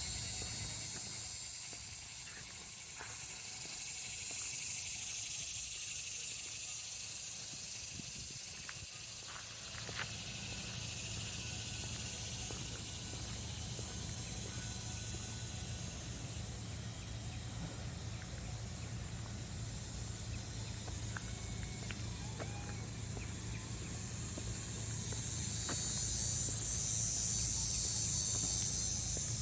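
A chorus of insects, such as cicadas, buzzing in the trees: a steady high hiss that slowly swells and fades and grows loudest near the end. Under it a low steady hum sets in about a third of the way through.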